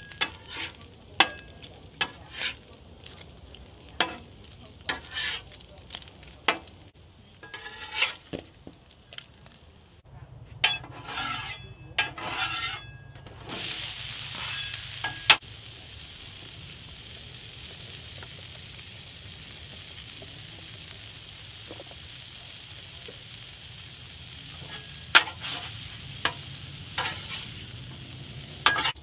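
Food sizzling in hot fat on a flat-top griddle: bacon frying with scattered sharp pops and clicks, then about halfway through a steady, louder sizzle as halved Brussels sprouts fry. A spatula scrapes and taps against the griddle now and then.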